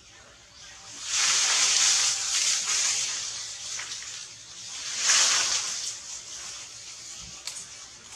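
Leaves rustling in the tree canopy, a hissing rush that swells twice: first about a second in, then again around five seconds.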